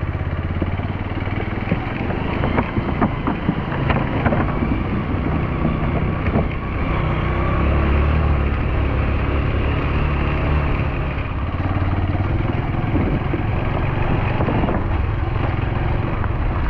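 A vehicle engine running steadily, heard while riding on it, with wind buffeting the microphone and a few sharp knocks a few seconds in.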